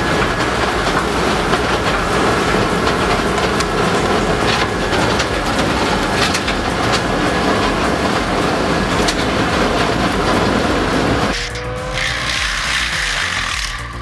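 Peterson 6750D electric wood grinder running under load, a loud, dense grinding roar as it chews through wood. About eleven seconds in the sound changes abruptly to a thinner machine sound with a rising whine.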